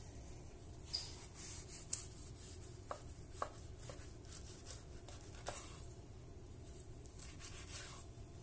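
Knife sawing through the puff-pastry crust of a beef Wellington on a board, with scattered crackles, clicks and short scraping strokes as the pastry breaks.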